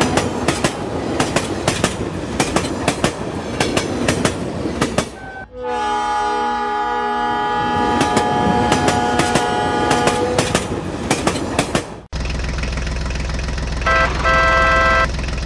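Toy steam train running on its plastic track: rapid clicking with whistle-like tones over it, broken by a brief dip about five seconds in. About twelve seconds in the sound changes to a steady low engine drone, with a horn-like beep lasting about a second near the end.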